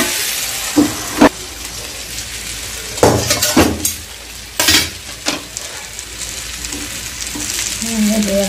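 Fish steaks shallow-frying in oil in a black pan: a steady sizzle. Sharp metal clanks of the steel lid and pan being handled cut in about a second in, and again several times between about three and five seconds.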